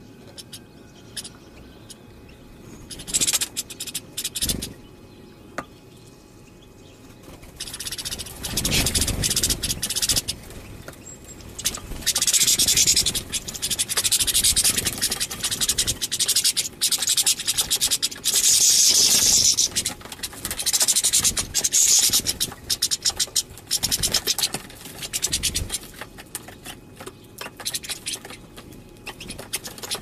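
A flock of European goldfinches busy at a feeder close to the microphone: scratchy, crackling bursts of fluttering and twittering. The bursts pick up about eight seconds in and are busiest in the middle.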